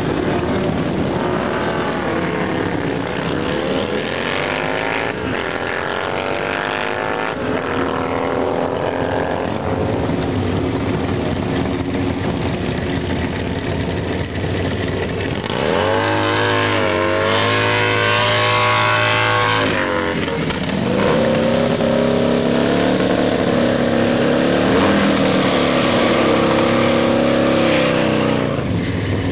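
Drag-racing motorcycle engines running at the start line and revving hard. About two-thirds of the way in, one is held at high revs for several seconds, spinning its rear tyre in a burnout.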